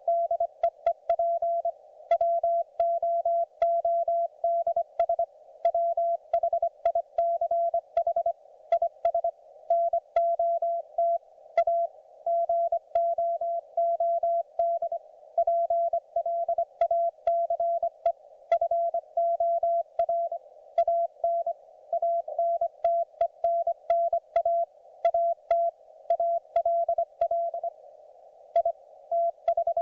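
Morse code (CW) from a YouKits HB-1B QRP transceiver: a single steady tone of about 700 Hz keyed on and off in dots and dashes at an even sending speed, over faint receiver hiss, with small clicks at the start and end of each element.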